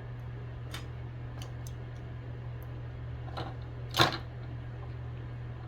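Light clicks and taps of tools working at a circuit board while a battery lead is desoldered, with one sharper click about four seconds in, over a steady low hum.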